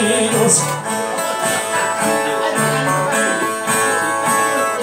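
Two Brazilian violas, as played in northeastern cantoria, plucking an instrumental break between sung verses. A man's voice ends a sung line within the first second.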